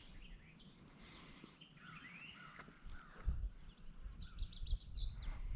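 Wild birds singing and calling in short chirps and whistled glides, with a quick run of high chirps about four seconds in; gusts of breeze rumble on the microphone underneath.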